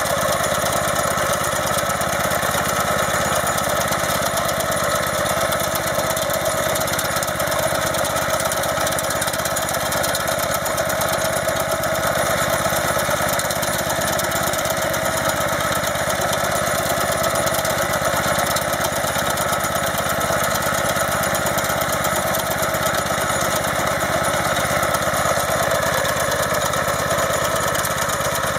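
Motor Sich walk-behind tractor's engine running steadily as the tractor pulls a potato digger through the soil.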